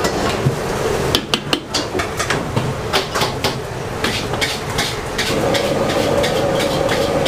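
Metal ladle knocking and scraping against a steel wok during stir-frying, a quick irregular run of sharp clanks. A steady hum comes in about five seconds in.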